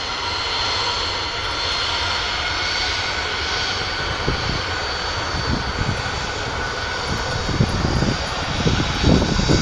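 Ryanair Boeing 737-800's jet engines whining steadily at low power as it taxis, with a gusty low rumble building over the last few seconds.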